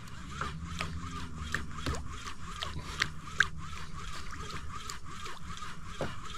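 Water lapping and splashing against a fishing kayak's hull in short irregular slaps, a few a second, with small clicks and one sharper knock about three and a half seconds in. A faint low hum runs under the first two seconds.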